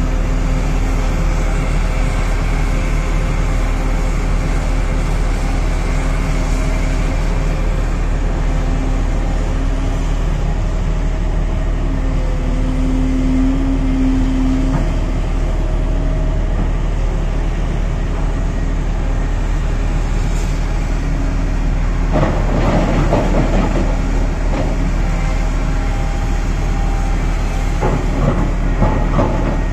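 Volvo EC950E crawler excavator's diesel engine running steadily under load with a hydraulic whine. Rock clatters and scrapes as the bucket digs into the face, a little past two-thirds of the way in and again near the end.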